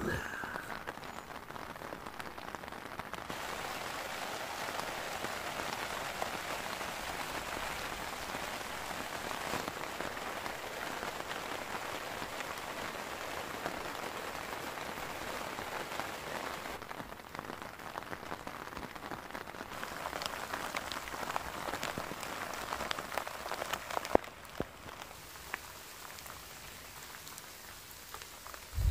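Steady rain falling on a tent's fabric, with a few sharper single drop hits and a lighter patch in the last few seconds.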